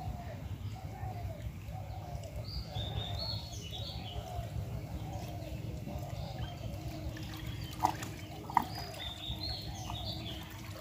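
Birds calling and singing, a short call repeating steadily under higher chirping phrases, with two sharp clicks about eight seconds in.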